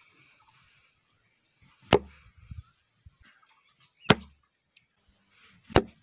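Homemade syringe slingshot shot three times at a cardboard box, each shot a sharp snap with a short dull thud, about two seconds apart.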